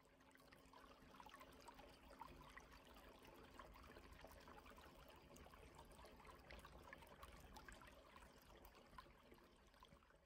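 Faint trickling and bubbling of a small fountain jet in a water basin.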